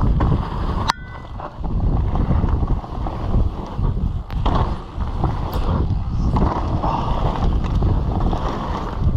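Wind buffeting the microphone and mountain-bike tyres rolling fast over a dirt trail, with knocks and rattles from the bike on the bumps. About a second in, a sharp clack with a brief ring.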